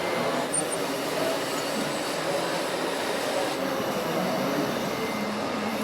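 Steady whirring of the small electric motors and gearboxes of RC model trucks and tractors.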